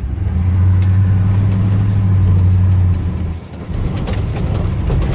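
1986 Chevy C20 three-quarter-ton pickup's engine pulling the truck along, a steady low drone that dips briefly about three and a half seconds in and then picks up again.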